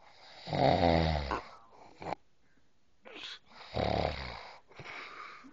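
A sleeping man snoring: two deep snores about three seconds apart, each followed by a breathy outbreath.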